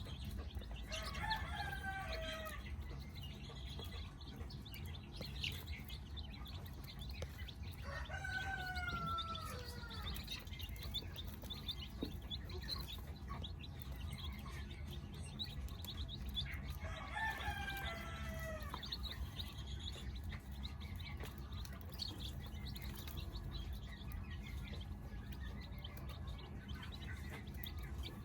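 Rooster crowing three times, several seconds apart, each crow falling in pitch at the end, with chicks cheeping throughout over a steady low hum.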